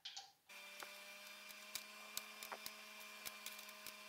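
Faint steady electrical hum that starts suddenly about half a second in, with scattered light clicks and ticks over it.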